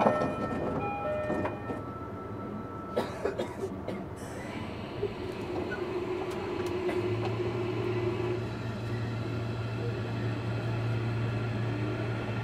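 Interior running sound of a JR Kyushu 305 series electric train, heard from inside a motor car. There are a few clicks and knocks early on, then a steady low drone comes in about seven seconds in and holds.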